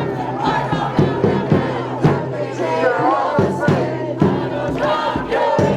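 Crowd of protesters shouting and cheering, many voices at once, with irregular sharp hits through it.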